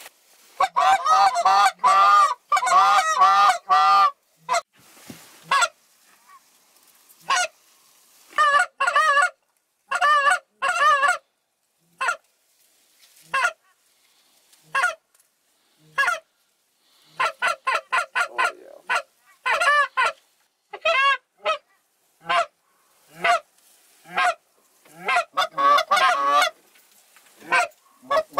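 Goose honks and clucks, loud and close: quick runs of short notes about a second in, then single honks spaced a second or two apart, then quick runs again later on.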